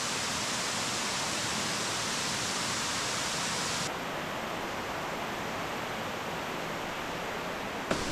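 Steady rush of falling water from a waterfall inside a cave. About four seconds in, the rush abruptly turns a little quieter and duller.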